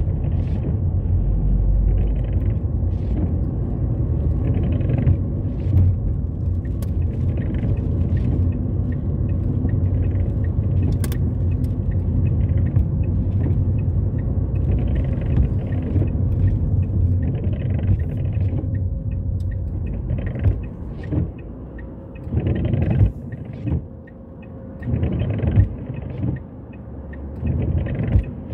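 Steady low rumble of a car's engine and tyres heard from inside the cabin while driving. After about twenty seconds it grows quieter and uneven as the car slows, with a few short knocks.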